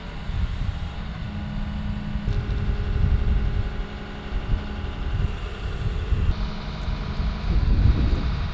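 Wheeled excavator's diesel engine running with a heavy low rumble and a steady hum as the tiltrotator grapple lifts and swings a concrete pipe.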